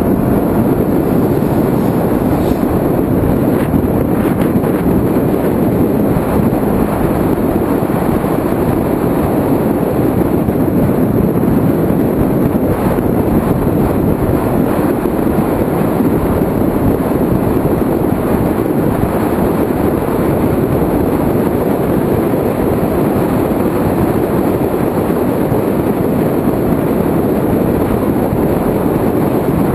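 Steady wind rush over a mirror-mounted action camera on a Kawasaki ZX-6R sport bike ridden at speed, with the bike's inline-four engine running beneath it.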